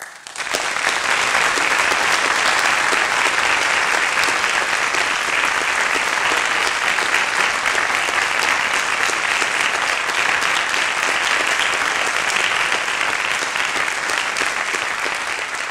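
Audience applauding, a long unbroken round of clapping that eases off slightly near the end.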